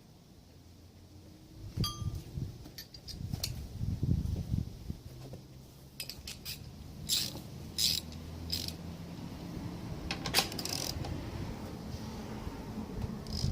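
Metal hand tools and parts being handled: a sharp clink with a brief metallic ring about two seconds in, then scattered clinks, rattles and scrapes of tools against metal.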